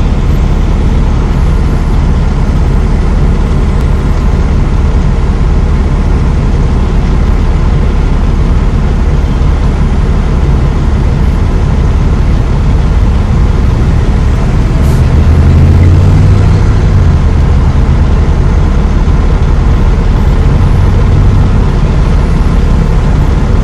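Steady low rumble of motor vehicle engines running at idle, with a louder low engine note between about fifteen and seventeen seconds in.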